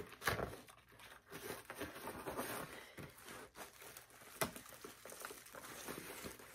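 Gift wrapping being crinkled and torn off a boxed card game by hand, faint and irregular with small crackles and clicks.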